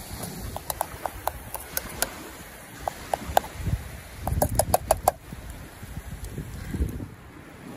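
Metal spoon clinking and scraping against the inside of a camp kettle while ground meat is stirred in it: quick runs of light ringing taps, the busiest run about four to five seconds in.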